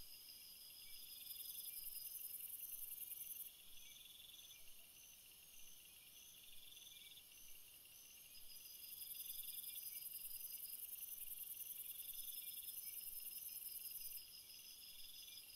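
Insects stridulating: a high, steady buzz that grows louder twice for a few seconds at a time, with shorter trills repeating every couple of seconds beneath it.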